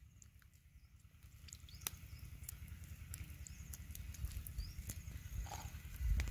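Light handling sounds as fresh red chilies are picked out of a plate of water: faint scattered clicks and drips over a low wind rumble on the microphone, with a few short high chirps. A louder low thump comes near the end.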